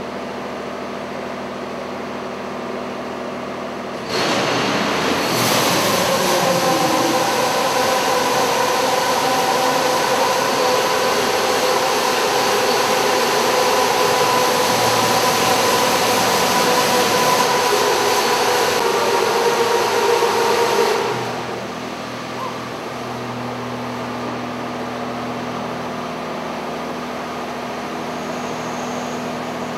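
Automated car wash gantry running with a steady machine hum. About four seconds in, its high-pressure water jets start spraying: a loud, even rush of water with a steady pump whine. They cut off about twenty-one seconds in, leaving the lower hum.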